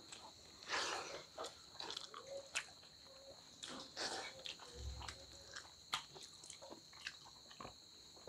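Close-up eating by hand: wet mouth smacks and chewing, with soft clicks and squelches of fingers mixing rice and dal on steel plates, in short irregular bursts. A steady high insect trill runs underneath, and a dull low bump comes about five seconds in.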